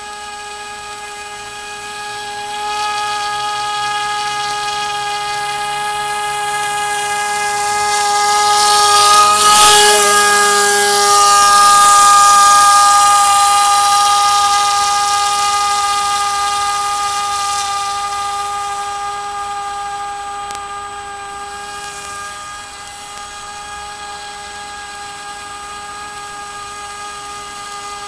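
Radio-controlled model airboat's motor and propeller whining at a steady pitch. It grows louder as the boat passes close about ten seconds in, then fades as the boat runs away across the water.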